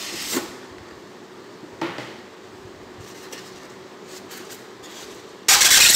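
Packaging of a boxed opal glass bowl set being opened and handled: a couple of light knocks, then a loud scraping rustle of about half a second near the end as the packing is shifted.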